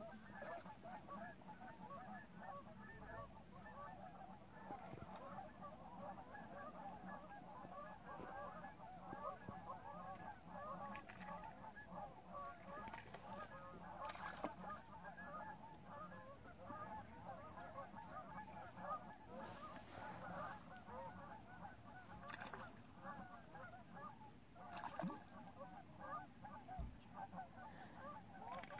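A distant flock of sandhill cranes calling, many overlapping calls in a steady, faint chorus, with ducks among them.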